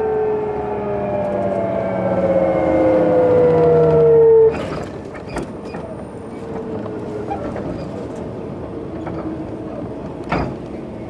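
Hitachi GTO inverter of a Sotetsu New 7000 series electric train car whining in a stack of tones that fall steadily in pitch as the train slows, then cuts off suddenly about four and a half seconds in. After that only the wheels' rolling noise remains, with a couple of sharp clicks.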